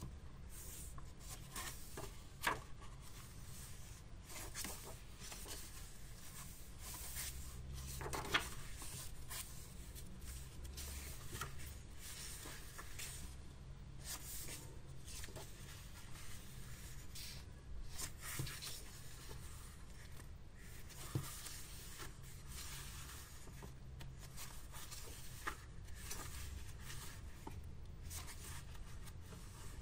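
Paper pages of a hardbound sketchbook being turned and smoothed flat by hand: soft, irregular paper rustling and sliding, with a few sharp clicks as pages and the cover are handled.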